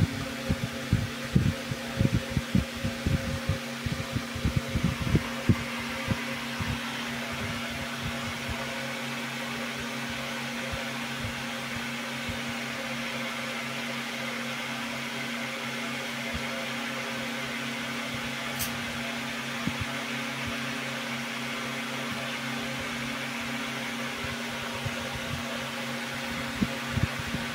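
Steady mechanical hum with a few constant tones running under everything, with a run of low thumps in the first six seconds, a few more near the end, and a single sharp click about two-thirds of the way through.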